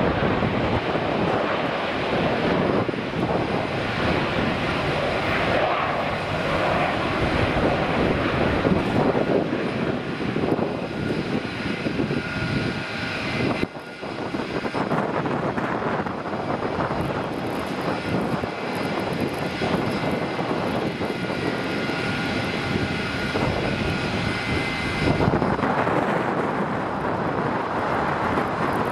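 Airliner jet engines running at taxi power: a steady rumble and hiss with a faint high whine. The sound dips briefly about halfway. In the second half the source is an Air New Zealand Boeing 787-9 taxiing.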